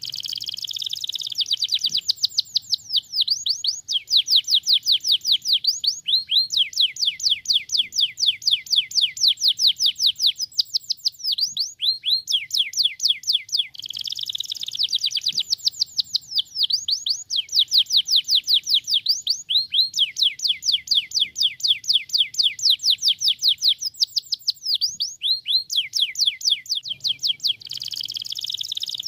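Domestic canary singing a long song of fast trills: runs of quickly repeated falling whistled notes, several a second, broken by a brief jumbled warble three times. The same phrases recur about every 13 seconds.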